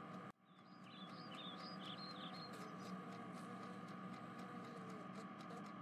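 Faint birds chirping, a handful of short high chirps in the first two seconds or so, over a low steady background hum.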